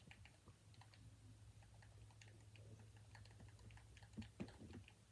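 Near silence: room tone with a steady low hum and faint, scattered clicks of game controller buttons, a few slightly louder near the end.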